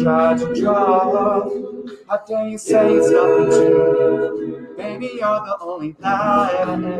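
Mixed-voice a cappella group singing: a lead voice with vibrato over sustained backing chords, in phrases that pause briefly about two seconds in and again near the end.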